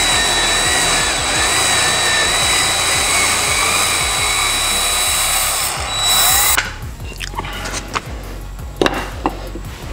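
Cordless drill running steadily for about six and a half seconds, turning a scissor jack's screw under a loaded car rotisserie arm, with a constant high whine; it stops abruptly, and a few wooden knocks follow.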